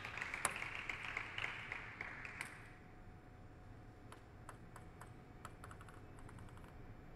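Clapping that dies away about two and a half seconds in, then a run of light, quick clicks of a table tennis ball being bounced by the server before the serve.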